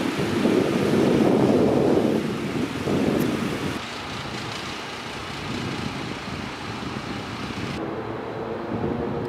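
City street ambience: a steady rush of traffic and wind on the microphone, loudest in the first two seconds and quieter from about four seconds in.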